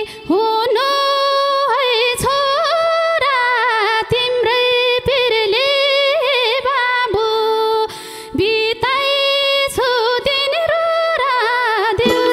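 A woman singing a long, highly ornamented line of a Nepali lok dohori folk song into a microphone, her pitch sliding and wavering between held notes, with a short breath about eight seconds in.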